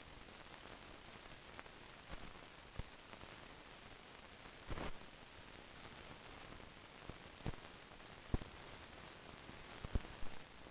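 Steady hiss of an old film soundtrack with scattered clicks and pops, about half a dozen, the loudest near the middle.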